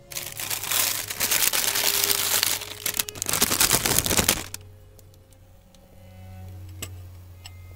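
Clear plastic wrapping of a frozen pizza crinkling loudly as it is handled and pulled off, for about four and a half seconds. Then it goes quieter, with a couple of light clicks near the end.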